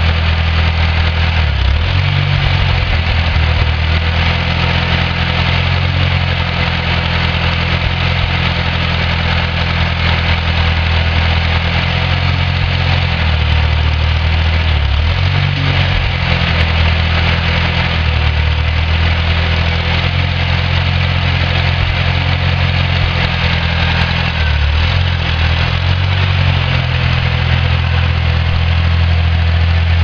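Homemade backhoe's Wisconsin engine running steadily under the operator's control. Its note shifts briefly a few times as the boom and bucket are worked hydraulically.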